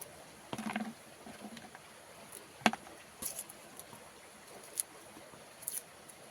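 A few scattered knocks and light clicks, the sharpest one about two and a half seconds in, over a faint steady hiss.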